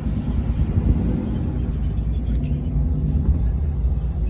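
Truck driving, with steady engine and road rumble heard from inside the cab.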